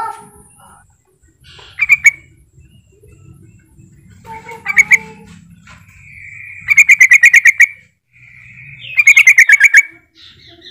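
Yellow-vented bulbul (trucukan) giving its calling song: short bubbly phrases, each a quick run of chattering notes. The two longest phrases come in the second half and each opens with a held whistle. It is the call used to provoke other bulbuls into answering.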